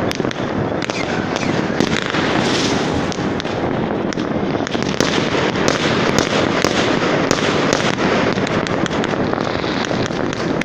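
Many fireworks and firecrackers going off at once: a dense, continuous crackle of overlapping bangs and pops.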